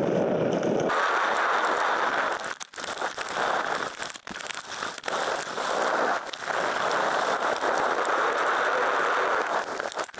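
Fast-forwarded ride noise from a handlebar-mounted camera on a mountain bike pulled by a husky on a muddy trail: wind rushing over the microphone and the tyres on the trail, shifted up in pitch about a second in as the footage speeds up. There are several brief dips in the noise.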